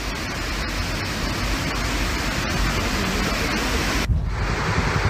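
Landslide: a steady rushing rumble of rock and dirt sliding down a steep hillside, with a few faint clicks of falling stones. It breaks off for a moment about four seconds in, then carries on.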